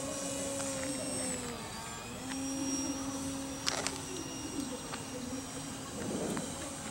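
Electric motor and propeller of a Fun Cub RC model plane in flight, a steady whine that sags briefly in pitch about one and a half seconds in and comes back up. A single sharp click a little past halfway.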